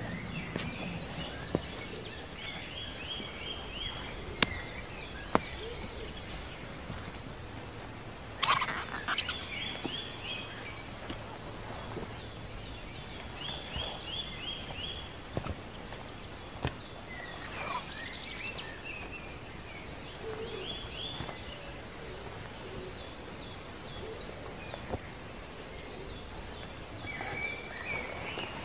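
Small songbirds singing: short phrases of quick high notes, repeated every few seconds. A few sharp clicks come through, and one brief louder burst of noise about eight and a half seconds in.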